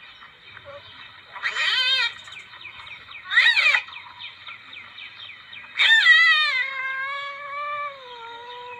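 Civet calls: three cat-like wailing calls, the first two short and wavering, the third longer, falling in pitch and then held as a steady drawn-out tone, over a steady high-pitched background hiss.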